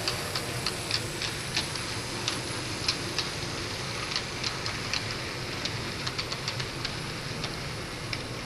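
N gauge model train running on its track: a steady rumble with irregular sharp clicks as the wheels pass over rail joints.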